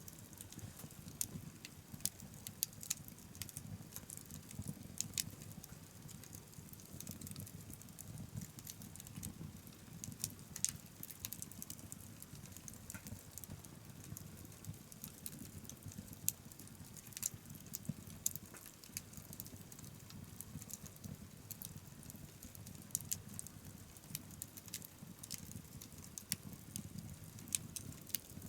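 Wood fire crackling: frequent irregular sharp pops and snaps over a low steady rush of the flames.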